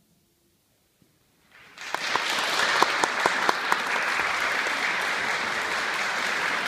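An audience applauding: after about a second and a half of near silence following the final note, clapping starts, with a few separate sharp claps standing out at first, then settles into steady applause.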